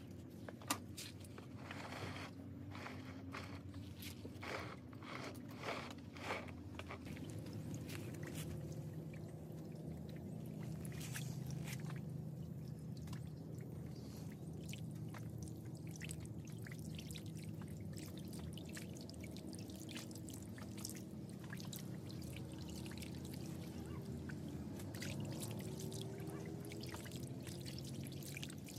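Water pouring and trickling on a flooded concrete floor around a potted bonsai, with splashes as a hand flicks water over the tree. A few sharp clicks and taps come in the first several seconds.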